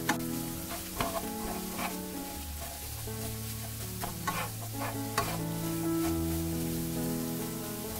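Shrimp, scrambled egg and chives sizzling while being stir-fried in a nonstick frying pan, wooden chopsticks and a wooden spatula scraping and tapping against the pan several times. Soft background music with held notes underneath.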